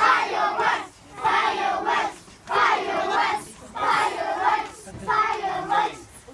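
A group of children chanting in unison: five loud phrases of about a second each, with short gaps between them.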